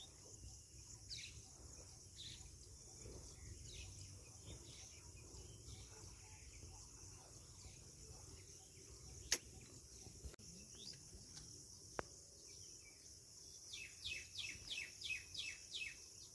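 Quiet pond-side ambience: a steady high insect drone with scattered bird chirps, and near the end a quick run of about eight falling bird chirps. A sharp click stands out about nine seconds in, with a fainter one a few seconds later.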